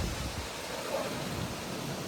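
Gusty wind ahead of a tropical thunderstorm, buffeting the microphone with a steady rush of noise and uneven low rumbles. It is really windy.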